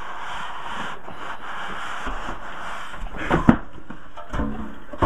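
Hand rubbing and sliding against a cardboard box, then knocks and bumps as the packed contents are moved in it. The loudest is a sharp knock about three and a half seconds in.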